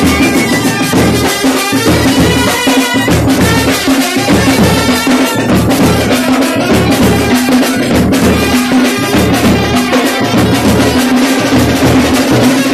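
A drum-and-brass band playing: large double-headed drums beat a dense, steady rhythm under a long held note.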